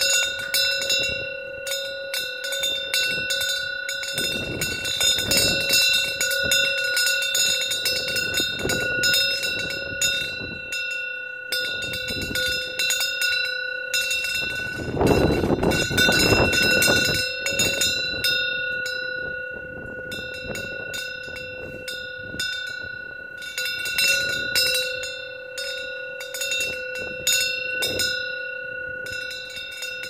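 A Korean temple wind bell (pungyeong) hanging from the eaves, ringing over and over as the wind swings its clapper, so its tones never die away. Strong gusts of wind rush past, the loudest about halfway through.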